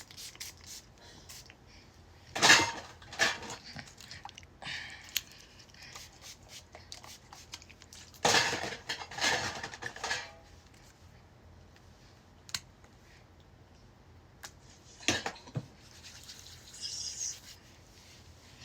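Small hard objects clattering and scraping in several short bursts, with single sharp clicks in between.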